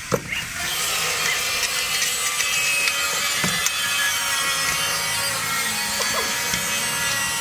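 Steady workshop tool noise, a continuous rasping sound, with a few short knocks about a second in, midway and near the end.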